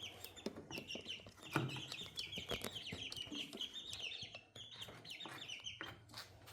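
Five-week-old chicks peeping: many short, high chirps in quick succession, with scattered clicks and taps among them.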